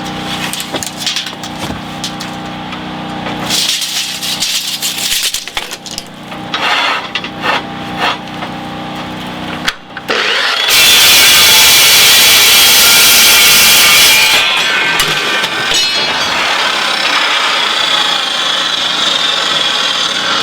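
Dry-cut metal saw running, with clanks of steel bar being handled, then its blade biting into 1 by 3/8 steel flat bar about halfway through: a loud cutting screech, loudest for about four seconds and carrying on a little quieter to the end.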